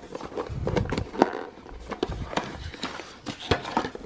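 Cardboard product box and paper insert being handled and opened by hand: scattered taps, clicks and scraping rustles of cardboard, with a few low bumps.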